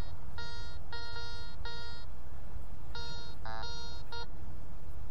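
Garrett ACE 200i metal detector beeping as the coil sweeps over targets: a run of short and longer beeps, mostly on one tone, with a couple of higher, wavering tones about three and a half seconds in. A steady low rumble runs underneath.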